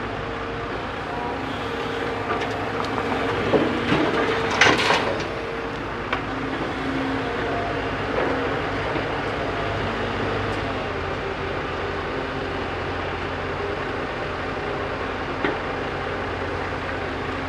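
JCB backhoe loader's diesel engine running steadily, with a cluster of clanks and knocks about four to five seconds in and a single knock near the end.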